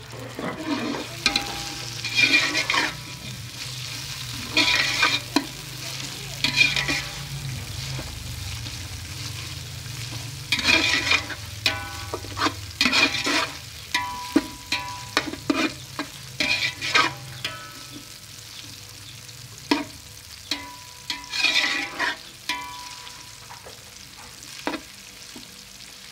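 Slotted metal spatula scraping and stirring in a metal pot in repeated irregular strokes, ringing against the metal, over a steady sizzle of onions and ginger-garlic paste frying in hot oil.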